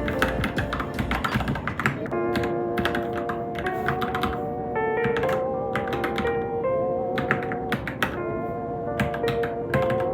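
Irregular typing on a Varmilo Minilo mechanical keyboard, quick clicky keystrokes at an uneven pace, over background music with held, wavering notes.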